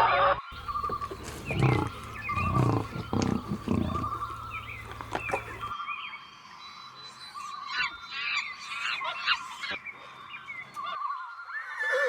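Farm animal calls in a few short clips cut together: low grunting strokes at first, then higher chirping calls from about six seconds in.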